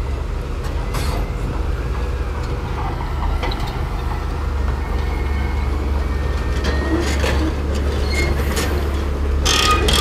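Shantui crawler bulldozer's diesel engine running steadily under load as it pushes sand, with its steel tracks clanking. The clanks come thicker about seven seconds in and again near the end.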